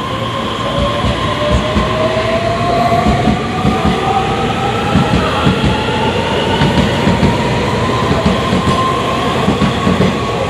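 Hitachi SiC-VVVF traction inverter of an EMU3000 electric multiple unit whining, its tones rising slowly and steadily in pitch as the train accelerates, over the rumble and clatter of wheels on rail.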